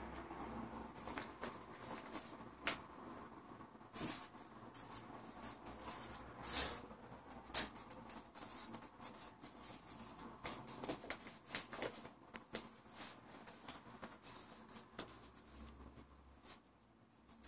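Young boa constrictor swallowing a small rat: faint, irregular soft clicks and rustling as its jaws work forward over the prey, with a few louder clicks now and then.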